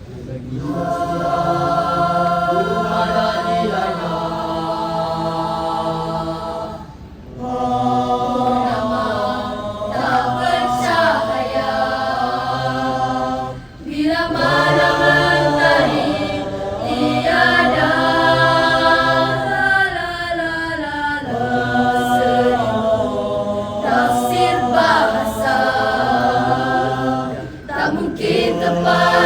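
School choir singing slow, held chords in several voice parts, the phrases broken by short pauses about 7 and 14 seconds in.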